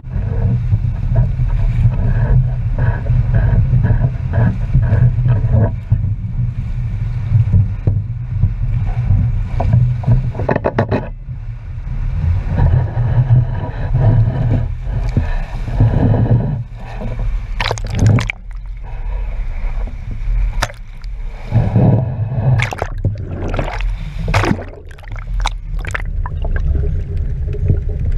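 Sea waves surging and sloshing around the pier pilings with water washing over the camera at the surface, a heavy low rumble with gurgling and several sharp splashes in the second half.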